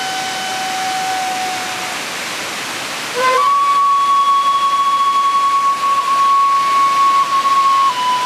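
Shakuhachi bamboo flute holding a long note that fades out about two seconds in, then after a short gap a higher note held for nearly five seconds, with a small dip partway and a slight step down near the end. A steady rush of falling water runs underneath.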